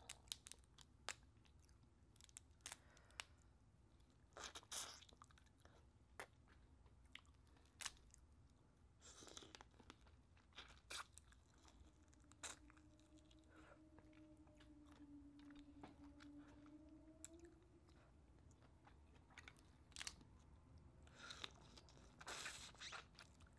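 Faint close-up eating sounds: lobster meat being picked from the shell and chewed, with scattered sharp clicks and crunches of shell, a few of them in short clusters.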